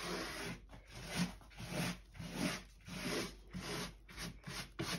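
Gloved hand sweeping drywall shavings and dust across the floor in repeated brushing strokes, about one and a half a second.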